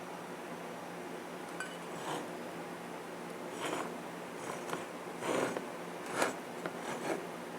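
Light handling noises in a small room: a few short clinks and scrapes of hard objects, some with a brief ring, over a low steady hum.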